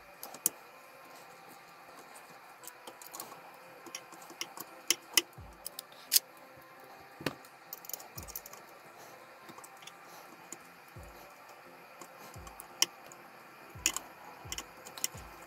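Irregular small clicks, taps and light knocks of hand work on a 3D printer's mainboard: a screwdriver on the board's mounting screws and fingers working plastic wire connectors loose.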